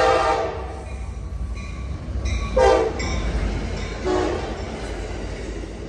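Amtrak F59PHI diesel locomotive's air horn: a long blast ending about half a second in, then a short blast about two and a half seconds in. Underneath is the steady low rumble of the locomotive and passenger cars rolling past.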